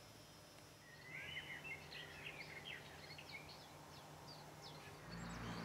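Faint birdsong: a songbird singing a quick run of warbled chirps and short high notes, starting about a second in, over a low steady background hum.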